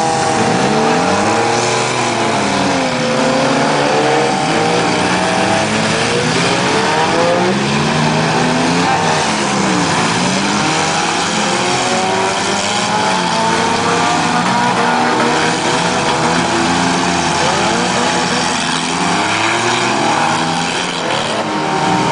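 Several four-cylinder demolition derby cars' engines revving up and down over one another without a break, as the cars push and ram each other, with a few crunching knocks of car bodies colliding.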